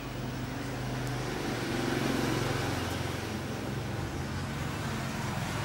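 Street traffic: a motor vehicle's engine running close by, growing louder over the first two seconds, over a steady hiss of road noise.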